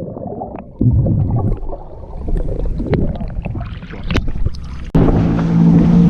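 Jet ski on open water: splashing and wind noise on the microphone with scattered knocks, then near the end a loud, steady engine drone cuts in suddenly.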